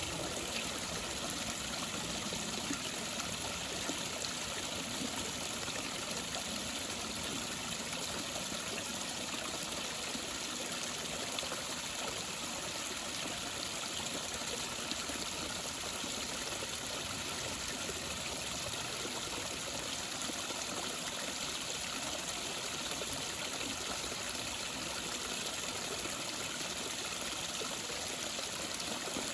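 Creek waterfall: a steady, unbroken rush of falling and splashing water.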